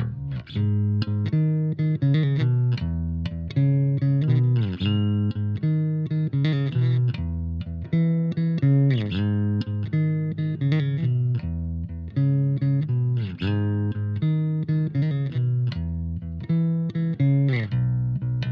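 Fender Mustang PJ short-scale electric bass played with the fingers: a continuous line of plucked notes, with slides in pitch between some of them.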